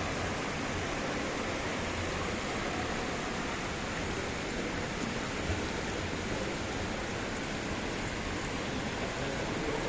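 Water fountain splashing steadily, an even rushing of falling water.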